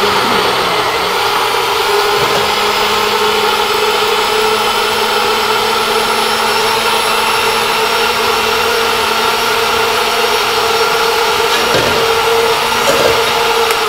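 Countertop blender running steadily at speed, pureeing chunks of daikon radish with water into a smooth turnip-cake batter.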